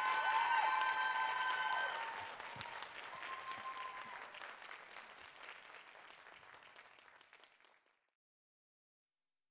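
Audience applause, loud at first and dying away steadily, then cut off into silence about eight seconds in.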